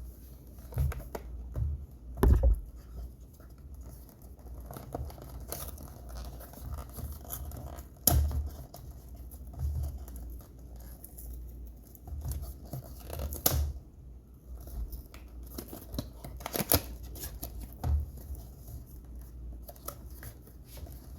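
Cardboard box of a Roku Premiere being handled and opened by hand: scraping, tearing and crinkling, with several sharp clicks and knocks spread through it.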